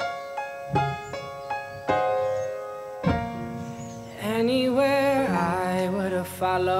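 Background music: piano notes struck and left ringing, with a singer's voice coming in about four seconds in.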